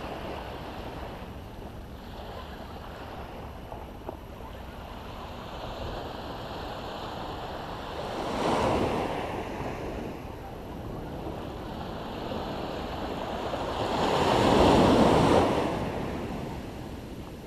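Ocean surf breaking and washing up a sandy beach, a steady wash with two louder surges of breaking waves, one about eight seconds in and a bigger one near the end.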